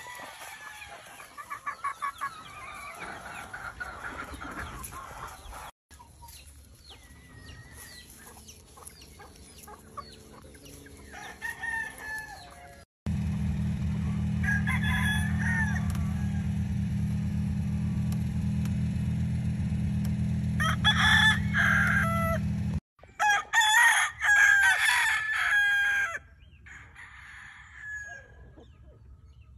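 Gamefowl roosters crowing several times, with clucking between the crows. The sound cuts out sharply a few times, and a steady low rumble runs under the middle stretch.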